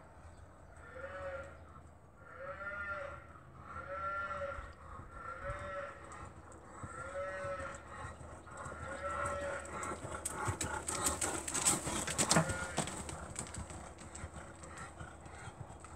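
Horse's hooves thudding on a rubber-chip arena surface as the horse passes close by, loudest about eleven to twelve seconds in. Before that there is a string of seven short, arching pitched sounds, about one every second and a half.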